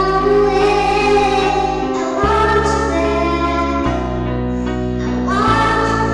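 A song sung by two singers over held backing chords. The low notes change about every one and a half seconds.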